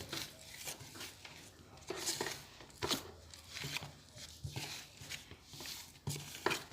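Spoon stirring a thick cornstarch, toothpaste and liquid-soap slime mixture in a bowl: irregular scrapes and soft knocks.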